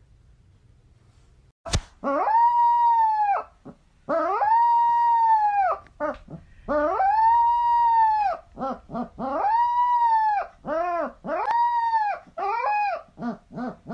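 A puppy howling: a run of long howls, each held about one and a half to two seconds, starting about two seconds in, then turning into shorter, broken howls near the end.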